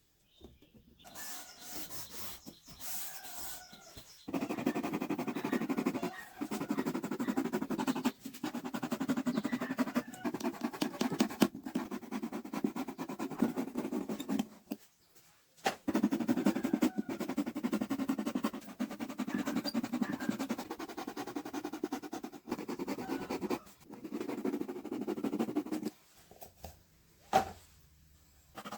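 Rapid rasping and rubbing on cardboard in long runs of several seconds, with short pauses between them.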